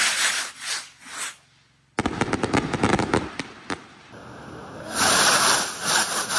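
Festival skyrockets launched from ground tubes: a loud rushing whoosh as they go up, then a rapid run of sharp bangs and crackles as they burst overhead, and another launch whoosh near the end.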